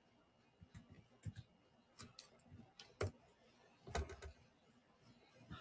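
Near silence broken by a few faint, scattered clicks and taps, the clearest about three seconds in and another just after four seconds.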